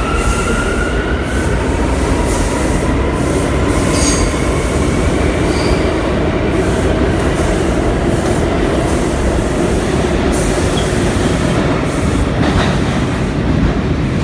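R179 subway train pulling out of the station and accelerating away, with a loud, steady rumble of wheels on rail. A whine rises in pitch over the first second or so, and a couple of sharp clacks come through the rumble.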